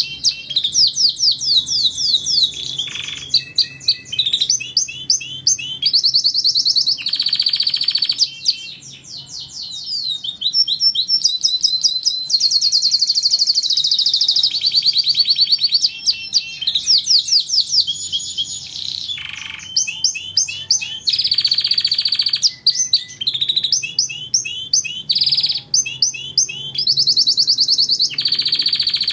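Domestic canary singing a long, continuous song of fast trills, rolls and rapid repeated chirps, with a brief softer passage about a third of the way in.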